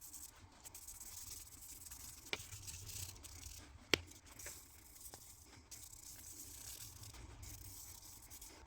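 Faint wet rubbing of a micro-mesh sanding pad on an acrylic lock-pick handle, with two small clicks, the sharper one about four seconds in.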